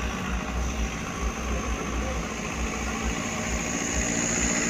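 Diesel engines of customised cargo trucks running at low speed while the trucks manoeuvre, a steady low hum with irregular low thumps. A faint high whine grows stronger near the end.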